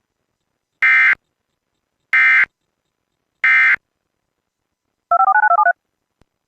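Emergency Alert System end-of-message signal: three short, harsh bursts of SAME digital data, evenly spaced about 1.3 seconds apart. About five seconds in, a quick string of about eight dual-tone touch-tone (DTMF) beeps follows, the kind cable systems use to cue the switch back to regular programming.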